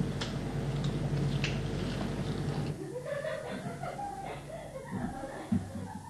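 Steady low hum for about three seconds, then a person laughing softly.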